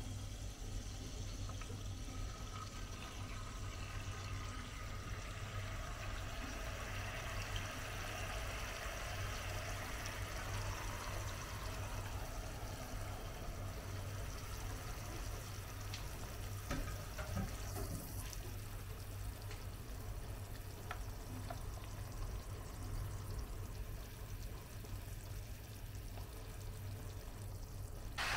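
Pomegranate sauce poured from a small saucepan into a hot frying pan, sizzling and bubbling around chicken pieces in butter and oil, with a few light clicks of spoon and pan a little past halfway. A steady low hum runs underneath.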